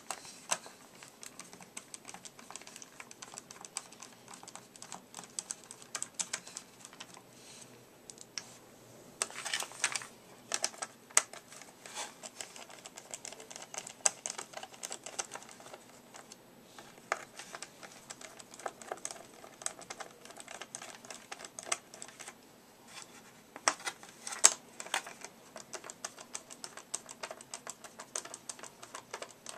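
Small screwdriver backing screws out of a Swivel Sweeper's clear plastic housing, with many irregular light clicks and scrapes of metal and plastic as the screws turn and the parts are handled, bunching into quicker flurries now and then.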